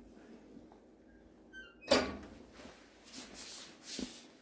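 Wood stove's metal door being handled: a faint squeak, then a sharp clank with a short ring about two seconds in, followed by a few short rustling scrapes.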